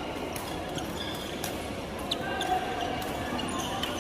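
Badminton play on a court: sharp racket hits on the shuttlecock and short squeaks of shoes on the court floor at irregular moments, over a low murmur of voices.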